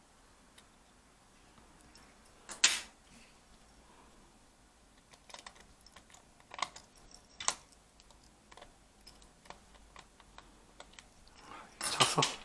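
Scattered small clicks and knocks of a screwdriver and tiny screws being worked on a laptop's plastic bottom case. There is a sharper knock about two and a half seconds in and a short burst of clatter near the end.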